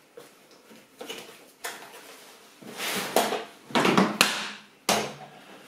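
Canvas fishing bucket bag being opened and handled: fabric rustling and scraping, with a few sharper knocks as the bucket's plastic lid is lifted out, loudest from about three to four and a half seconds in.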